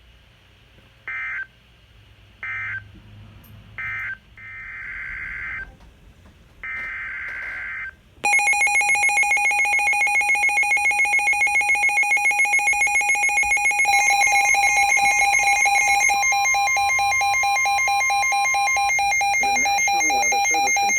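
Emergency Alert System signal on a weather radio broadcast. Three short screeching digital data bursts come about a second and a half apart, then two longer bursts. About eight seconds in, a loud, rapidly pulsing alert tone starts, and a second tone joins it for a few seconds partway through. The signal announces a new severe thunderstorm warning.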